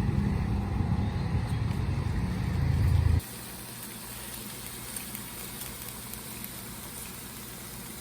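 Steady background noise with a heavy low rumble, like traffic or wind on the microphone, that cuts off abruptly about three seconds in to a quieter, even hiss.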